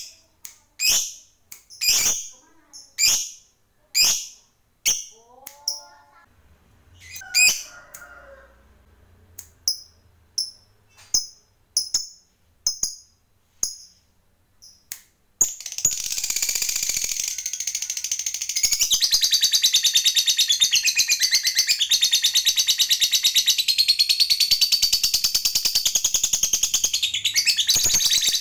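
Lovebird calling: sharp, high single chirps about once a second, a few lower gliding calls, then quicker short chirps. About halfway through it breaks into a long, loud, rapid chattering trill without a break, the prized 'ngekek panjang' of a lovebird in full song.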